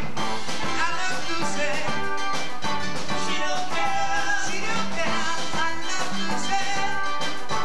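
A rock band playing live: drum kit, electric guitar and keyboard together with a steady beat.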